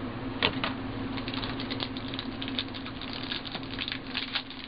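Trading cards and foil card packs being handled: a dense run of small crackles and clicks, with one sharper click about half a second in. A steady low hum runs underneath.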